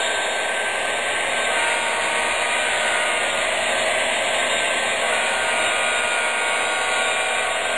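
Sound system of HO scale MTH SD70M-2 model diesel locomotives playing a diesel engine running steadily under power. Through the small onboard speakers it comes out as a steady, hissy rumble with a few faint whining tones.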